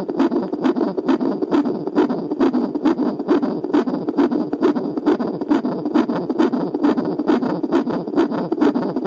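Fetal Doppler monitor sound: a rhythmic whooshing pulse repeating about two and a half times a second, a rate in the range of a fetal heartbeat.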